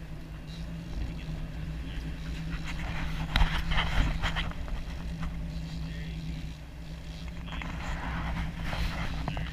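Boat engine running steadily under wind and rushing water, with louder surges of noise about three to four seconds in and again near the end.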